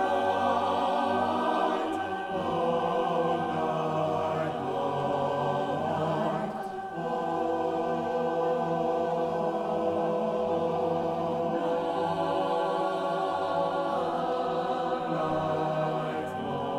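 Mixed choir of women's and men's voices singing a slow sacred choral piece in sustained chords, with short breaks between phrases about two and six and a half seconds in.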